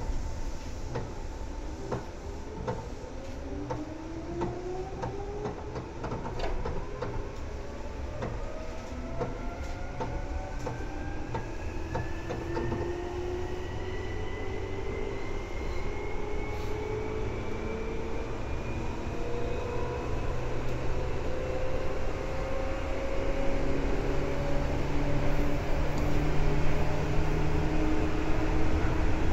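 Seibu 2000 series electric train pulling away and accelerating, heard inside the car: the traction motor and gear whine rises steadily in pitch as the train gathers speed. Wheels click over rail joints, and the running noise grows louder towards the end.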